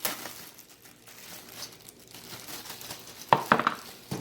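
Plastic packaging crinkling and rustling as boxed accessories are handled and unwrapped, with a burst of louder handling noise a little after three seconds in.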